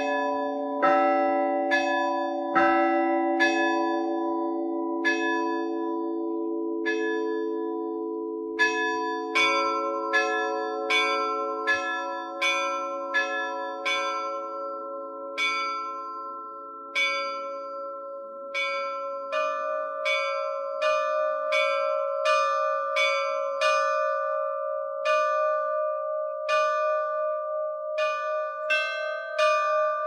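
Russian Orthodox church bells ringing a water-blessing perezvon (vodosvyatny perezvon), the bells struck one stroke at a time and each left to ring on. About one stroke a second, with the run moving from the deeper bells to higher, smaller ones as it goes.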